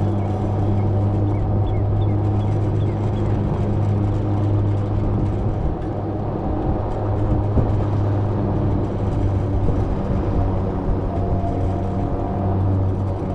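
A slow-moving vehicle's motor droning at a constant low speed, a steady low hum over tyre and wind noise.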